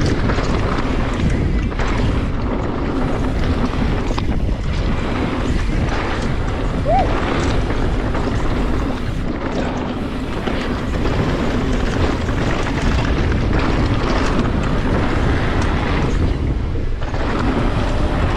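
Mountain bike ridden fast down a rough downhill track: a constant rush of wind on the microphone, with tyre noise and the bike rattling over repeated knocks and impacts.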